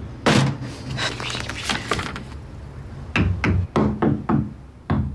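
A sharp thump and a clatter, then from about three seconds in a series of dull knocks, about three a second.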